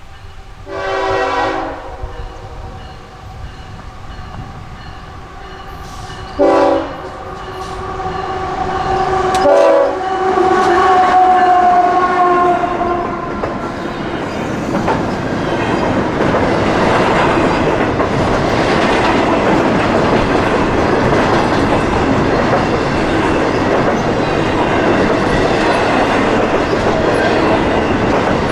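Locomotive horn blowing three blasts: a one-second blast near the start, a short one about six seconds in, and a longer one from about nine to thirteen seconds. Then comes the loud, steady noise of the train's wheels and cars rolling past.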